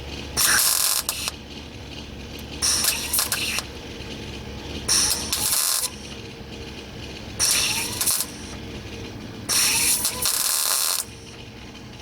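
MIG welder laying short tack welds on thin sheet-steel fender lip: five bursts of about a second each, a couple of seconds apart, filling a spot where the weld burnt through.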